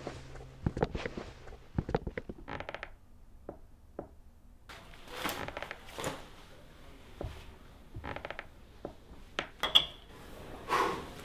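Handling sounds: scattered footsteps and knocks of trail shoes on a stone floor, a nylon jacket and pack rustling, then a metal medal clinking as it is set down on a wooden table near the end.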